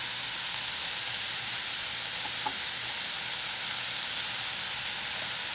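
Thin strips of prosciutto sizzling in a little oil in a skillet, a steady hiss as their fat renders off and they crisp.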